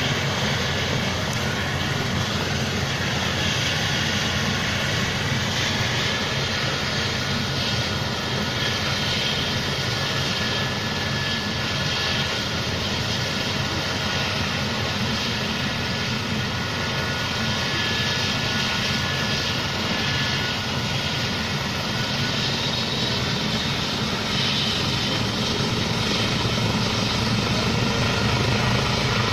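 Eurocopter EC135 T2 helicopter running steadily, its twin turboshaft engines and rotor making a dense, even noise. A thin high turbine whine sounds through the middle, and the sound grows a little louder near the end.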